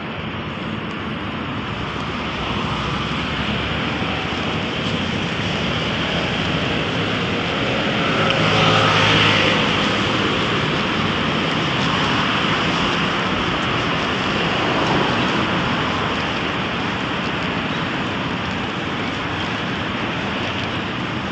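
Road traffic noise from a busy street, a steady rush of passing cars, with a vehicle going by close and loud about nine seconds in and another smaller swell a few seconds later.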